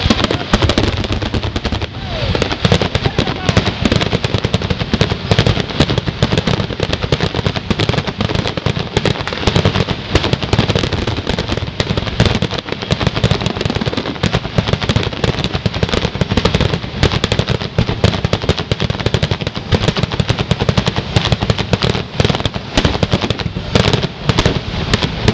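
Fireworks grand finale: a rapid, nearly unbroken barrage of shell bursts and bangs, packed so close together that they run into one another like machine-gun fire.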